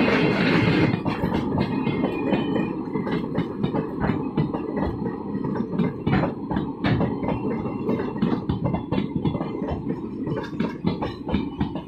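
A freight train's wagons rolling past close by: a steady rumble of steel wheels on rail, with quick, irregular clicking and clacking as the wheels pass over rail joints.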